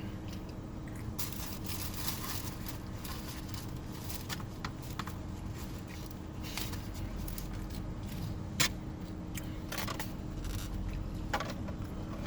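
Close-miked eating: chewing with scattered clicks and scrapes of a fork on a plate of food, one sharper click about eight and a half seconds in, over a steady low hum.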